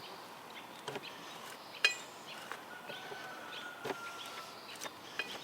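Scattered metallic clicks and clinks, about one a second, from a small hand grease gun being pumped to force grease into a chainsaw bar's nose sprocket. One clink near two seconds in rings briefly.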